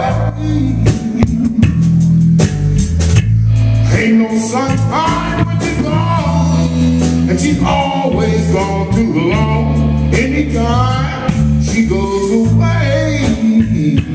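Live blues band playing an instrumental break: electric guitar, electric bass and drums, with a lead line that bends upward in pitch again and again.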